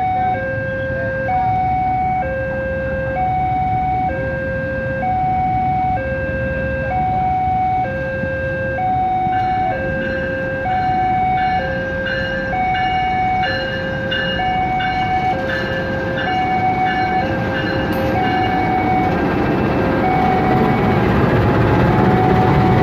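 Railway level-crossing warning alarm sounding a two-tone hi-lo pattern, the tones alternating about once a second, signalling an approaching train. A rumble grows louder over the last several seconds as the train nears.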